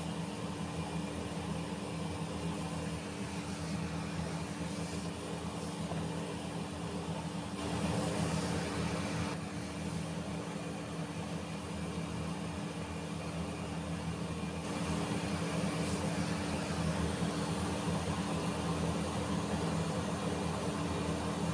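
Steady mechanical hum with a constant low drone and hiss, growing a little louder about two-thirds of the way through.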